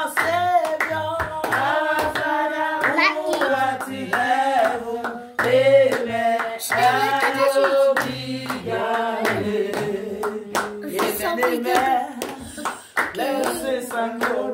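A woman singing a praise song over steady rhythmic hand clapping, with others clapping along.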